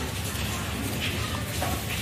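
A steady low hum with an even hiss of background noise, and faint voices in the background.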